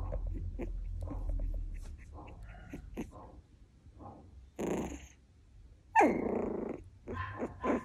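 Young Miniature Schnauzer puppy making small whimpering vocal sounds, with a louder cry about six seconds in that falls in pitch and lasts about a second.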